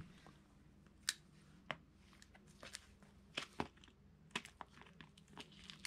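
A small cardboard box of M4 screws being picked open by hand: faint, irregular clicks and crinkles of the card, about ten of them.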